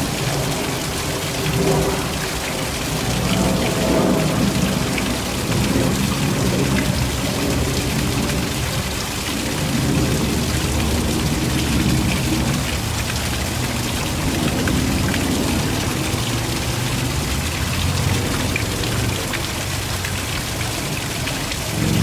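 Small waterfall splashing steadily down a rock face into a shallow pool.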